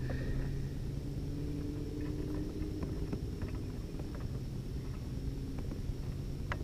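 A steady low motor-like hum, with a few faint clicks of metal pliers working a hook out of a fish's mouth.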